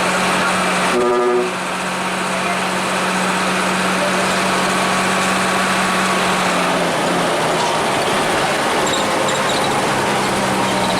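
Hino AK-3 bus's diesel engine running under load with a steady drone, heard from inside the bus. A short horn toot sounds about a second in. The engine's pitch dips briefly about seven seconds in.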